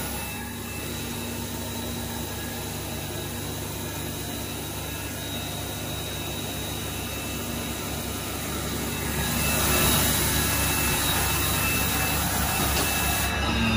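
Okuma MAi550VB vertical machining centre's spindle running steadily at 6000 RPM: a steady high whine over a machine hum. It grows louder, with more hiss, about nine and a half seconds in.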